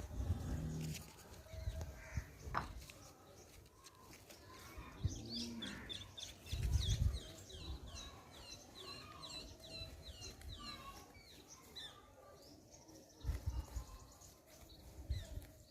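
Birds chirping in a quick run of short, high, falling chirps for several seconds in the middle. Low rumbling thumps come and go; the loudest is about seven seconds in.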